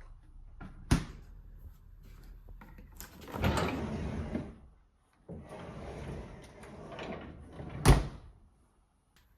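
A refrigerator compartment being opened and shut: a sharp knock about a second in, two stretches of sliding, rustling noise, and a louder knock near the end.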